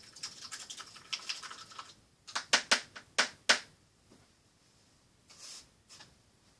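Paintbrushes and painting tools handled at the work table: a quick run of light clicks and rattles, then about six sharp taps in quick succession, like a brush knocked against a jar or palette. A short soft hiss follows near the end.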